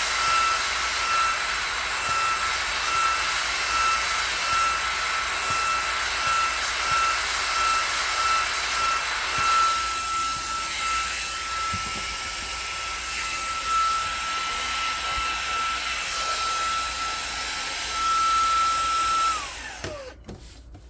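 Xiaomi mini cordless vacuum cleaner running, a steady high whine over the rush of suction. Near the end it is switched off and the whine falls away as the motor spins down.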